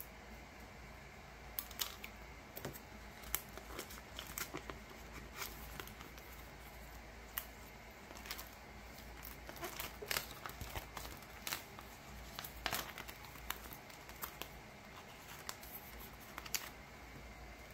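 Plastic photocard sleeves and binder pages crinkling as cards are handled and slid into pockets, with irregular sharp crackles and clicks.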